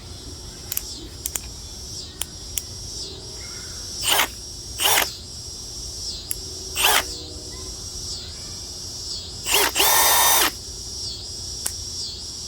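Milwaukee M18 Fuel cordless hammer drill's brushless motor spinning up with no load in quick trigger pulls: a few light clicks, then four brief blips and a longer run of about a second near the end, with a steady whine.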